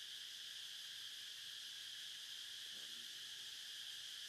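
Steady chorus of insects buzzing continuously in a high, even band, with no breaks or strokes.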